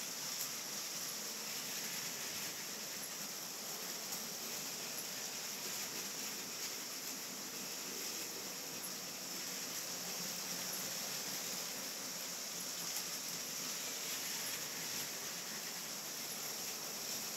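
Steady hiss with a few faint scattered ticks: LEGO trains rolling on their plastic track.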